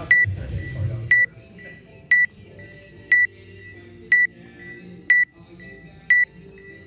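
Workout countdown timer beeping once a second: seven short, high beeps counting down the last seconds before a timed workout starts.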